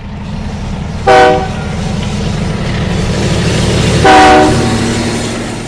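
Locomotive horn blowing twice over a steady train rumble: a short blast about a second in, and a longer one about four seconds in. The rumble swells and then fades.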